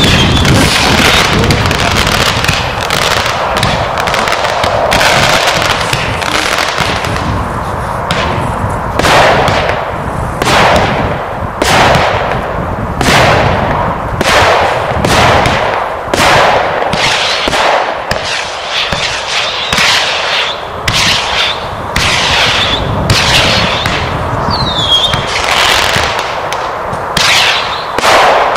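A multi-shot firework cake (barrage) firing a rapid sequence of shots, each launch a sharp bang followed by crackle, with an occasional short descending whistle.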